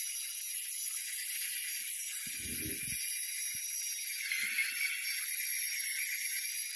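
Electric drill spinning a beater attachment inside a hollowed pumpkin, running steadily as it scrapes out pulp and seeds, with a constant high hiss.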